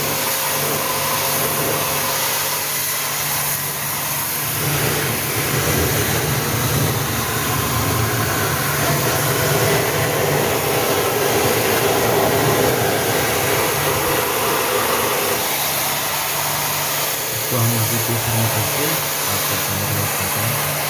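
Pressure washer running steadily, its motor humming under the hiss of the water jet spraying the condenser coil and sheet-metal casing of an air conditioner's outdoor unit.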